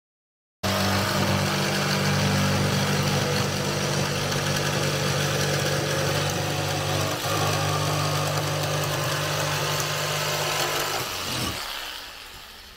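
Corded jigsaw cutting through a ply board, the motor and blade running steadily. It starts suddenly about half a second in, dips briefly around the middle and winds down with a falling pitch near the end as the cut is finished.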